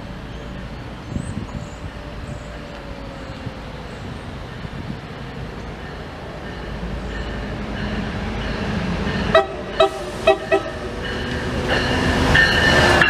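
MBTA commuter rail diesel locomotive approaching the station, its engine and wheel rumble growing steadily louder. About three-quarters of the way through it sounds four short horn blasts in quick succession. Near the end a thin high whine joins in as the train reaches the platform.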